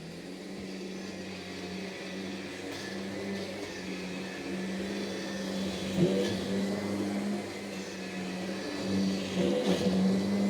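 Vacuum cleaner running steadily with a constant motor hum, with a sharp knock about six seconds in and a few smaller bumps near the end.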